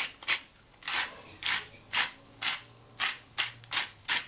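Salt shaker shaken hard over a bowl: a rhythmic rattling swish of grains, about two to three shakes a second.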